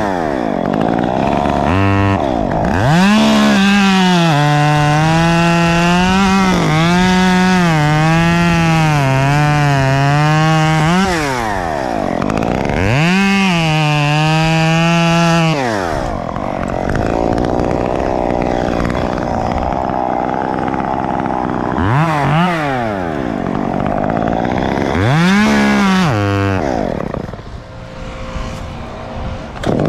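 Gas top-handle chainsaw revving and cutting through a palm's dead fronds and fibre. Its pitch sags and wavers under load through a long cut of several seconds and again through a shorter one, with quick throttle blips and drops back toward idle between cuts.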